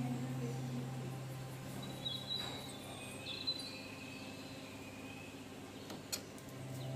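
Quiet background with a low hum that fades out over the first couple of seconds, a few faint high bird-like chirps, and one sharp click about six seconds in.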